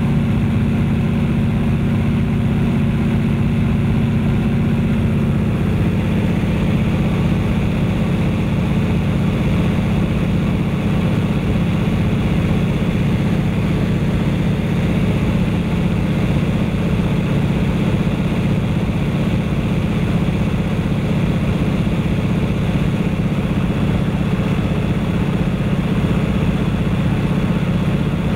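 De Havilland Canada Beaver floatplane in cruise flight: its Pratt & Whitney R-985 radial engine and propeller running with a steady drone, with air rushing past. The engine note shifts slightly about five seconds in.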